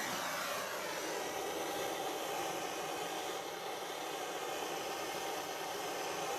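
Gas blow lamp burning with a steady hiss, held on the silver-soldering work.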